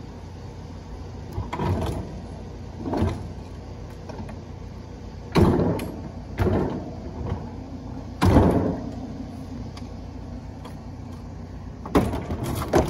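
A small refrigerator being rocked and pushed into a pickup truck's bed: a string of scraping thumps every second or two, the loudest about five and eight seconds in and a quick cluster near the end as it tips onto the bed liner. A steady low hum runs underneath.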